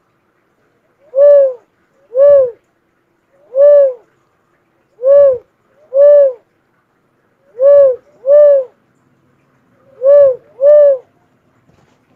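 Philippine cuckoo-dove cooing: a series of about nine short, pitched coos, each rising then falling slightly, repeated about once a second, some falling into quick pairs.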